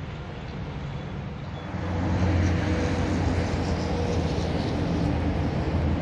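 A large engine running with a steady low rumble, growing louder about two seconds in and then holding.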